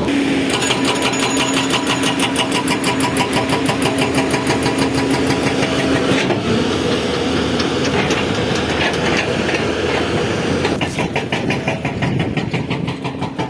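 Hydraulic breaker on a JCB excavator hammering in rapid, even blows over the excavator's running diesel engine. The hammering eases around six seconds in and picks up again near eleven seconds.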